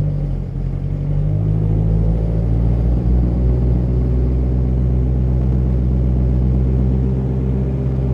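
Maserati Quattroporte 4.2's V8 idling through a loud Tubi Style sports exhaust, a steady deep note that lifts slightly about a second in and eases a little near the end, echoing in an underground car park.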